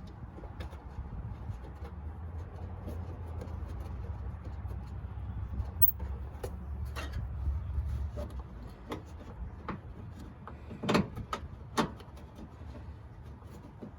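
A plastic windshield washer reservoir being handled and fitted into place: rubbing and shuffling over a low rumble, then a few sharp knocks near the end, two of them loudest and about a second apart.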